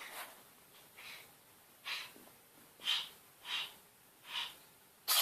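An animal's short snorting sneezes, about six of them roughly a second apart, with a louder, sharper one near the end.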